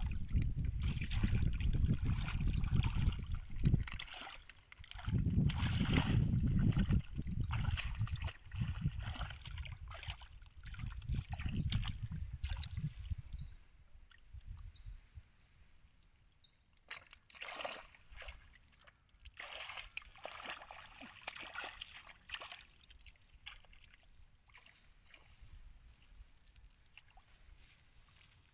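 Hands sloshing and splashing in shallow muddy water while groping for fish. A low rumble runs under it for roughly the first half, after which the splashing grows quieter and sparser.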